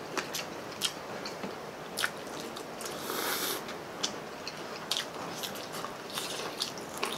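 Biting into and chewing crispy fried chicken drumsticks and crispy pata (deep-fried pork knuckle), with scattered sharp crunches, close to the microphone.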